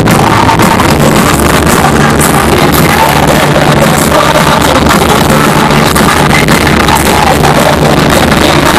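Live pop band music played over an arena sound system, recorded from the crowd on a phone; it is loud enough to overload the microphone, the level staying pinned near full scale.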